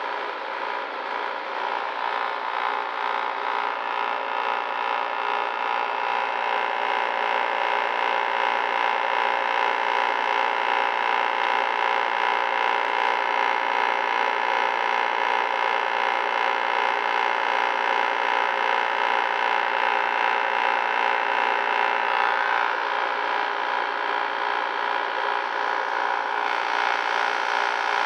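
Window air conditioner running with its compressor and fan on: a steady hum that grows a little louder over the first several seconds, then holds even. The compressor has just been switched on by a household thermostat wired through relays, and the unit is running normally and cooling.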